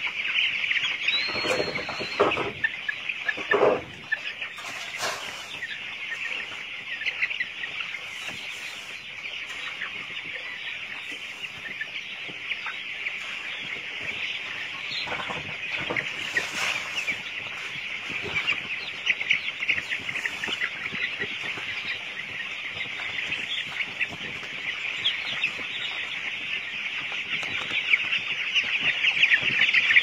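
A large flock of young chicks peeping nonstop, a dense chorus of high chirps. A few sharp knocks stand out in the first few seconds.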